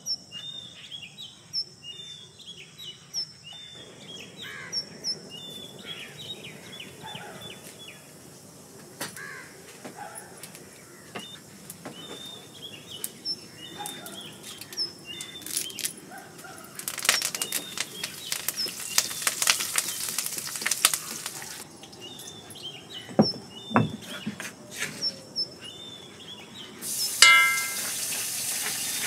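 Small birds chirping over and over, short falling chirps, with a spell of dense crackling about two-thirds of the way in. Near the end hot oil in an iron kadai over a wood fire starts sizzling steadily.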